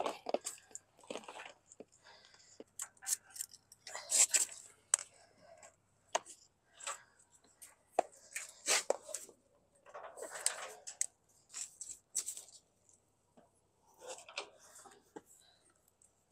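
Irregular handling noises: scattered clicks and knocks with a few longer scraping, rustling stretches, separated by short quiet gaps.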